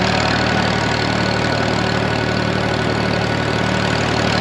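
Farmall M tractor's four-cylinder engine running steadily at belt-work speed, driving a flat-belt water pump.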